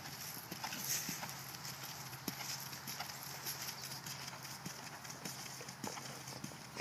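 Hoofbeats of a horse trotting on grass, soft irregular thuds over a steady high hiss.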